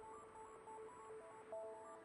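Faint background music: a simple melody of short held notes stepping up and down.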